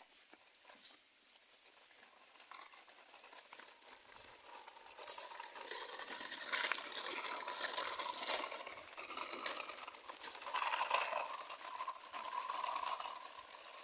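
Plastic toy trucks being pushed and handled, making an irregular scraping and rattling clatter that grows busier about five seconds in.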